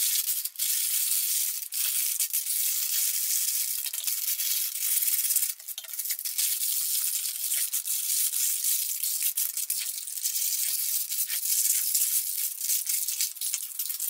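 Baking parchment paper being crumpled and folded by hand, a continuous crinkling rustle full of sharp little crackles.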